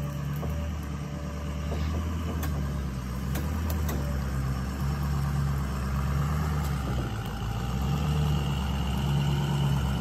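Pickup truck engine running slowly with a steady low rumble that pulses gently as the dirt-loaded truck backs up.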